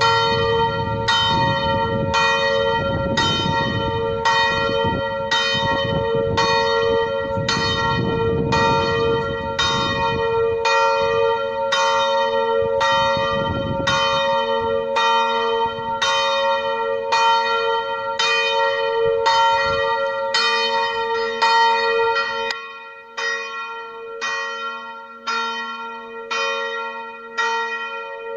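Old church bell in a stone bell tower tolling for noon, struck steadily about once a second, each stroke ringing on into the next. A low rumble underneath cuts off abruptly about three quarters of the way through, leaving the strikes standing out clearer.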